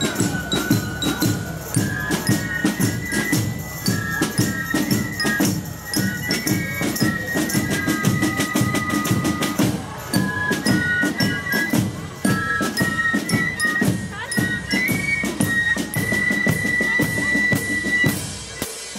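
A Tambourcorps (fife and drum corps) marching and playing: shrill fifes carry the tune over an even beat of drums, bass drum and cymbals. Near the end the fifes hold one long high note.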